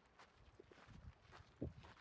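Faint footsteps crunching on a dirt-and-gravel trail, an uneven run of soft steps with a louder one about one and a half seconds in.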